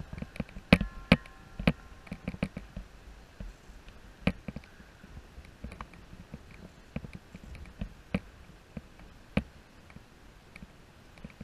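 Irregular sharp clicks and light knocks, several close together in the first two seconds and then sparser, over a faint low rumble.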